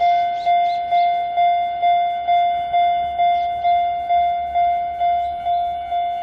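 Japanese railway level-crossing alarm in the single-tone 'Chichibu' sound, sounding close by: one bell-like ringing tone struck about twice a second, each strike ringing down before the next, a little weaker near the end.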